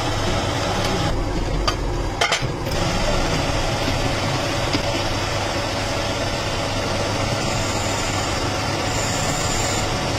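Metal lathe running, its chuck spinning with a steady hum, with a few sharp knocks about two seconds in. The cutting tool then turns a metal part, and a thin high whine comes and goes near the end.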